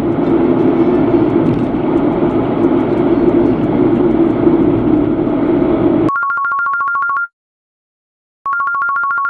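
Steady road and engine noise inside a moving car's cabin. About six seconds in it cuts off abruptly to an electronic telephone ring: two rings of about a second each, each a rapid two-tone warble, with a second of silence between.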